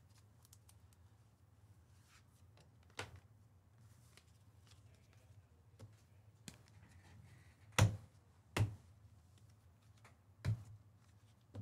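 Several sharp clicks and taps over a steady low hum, the loudest a pair close together about eight seconds in, with another near the end.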